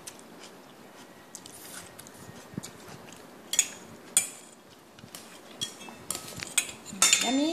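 A metal spoon clinks and scrapes against a stainless-steel bowl, with a few sharp clinks spread out and a quicker cluster near the end. A short rising voice sounds at the very end.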